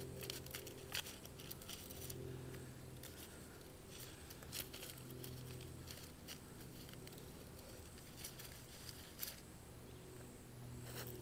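Knife cutting through a toasted sandwich: faint, scattered crisp crunches and clicks, busiest in the first two seconds and again about four and nine seconds in.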